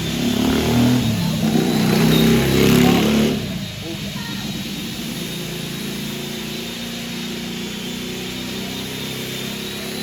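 An engine revving up and down for about three and a half seconds, then running steadily at a lower, even pitch.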